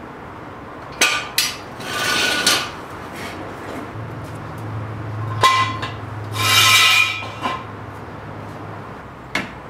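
Metal clanks and scrapes of garage tools and jacking gear: several sharp metallic knocks and two longer ringing scrapes, about two and six seconds in, over a low hum in the middle.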